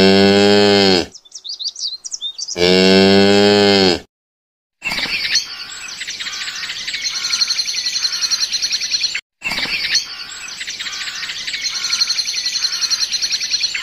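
Cow mooing twice, two long low calls of about a second and a half each, with brief high chirps between them. After a short pause, steady, rapid high-pitched chirping runs on to the end, broken once by a brief gap.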